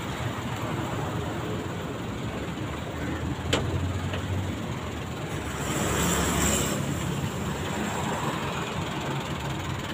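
Street traffic: motor vehicles running close by, with a steady low rumble that swells about six seconds in. A single sharp click about three and a half seconds in.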